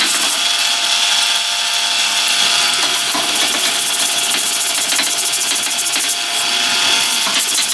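Handheld power tool running steadily with a high whine and hiss as it cleans the lathe bed.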